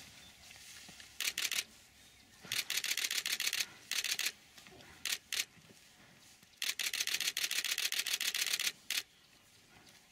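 Camera shutters firing in rapid burst mode: several runs of fast, evenly spaced clicks, the longest lasting about two seconds.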